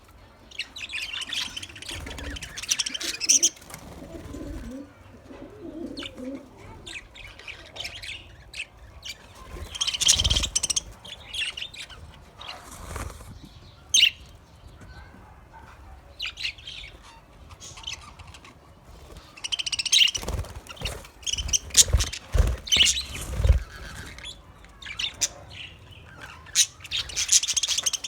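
Caged budgerigars chirping and chattering in short, high, irregular calls and clicks. A run of low thumps comes about two-thirds of the way through.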